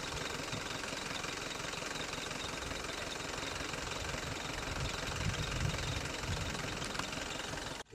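A vehicle engine idling steadily with a low, uneven rumble.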